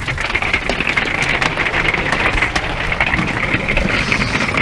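Big hail coming down hard on an RV and its roof-mounted solar panels: a dense, steady clatter of countless small hard hits over a rush of falling precipitation.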